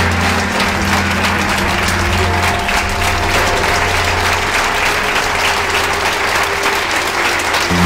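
Audience applauding, with a low, sustained note of background music underneath.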